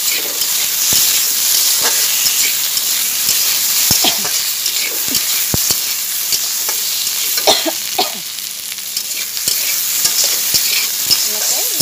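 Potato sticks and spice paste sizzling in hot oil in a pan, stirred with a metal spatula that scrapes and knocks against the pan at irregular moments.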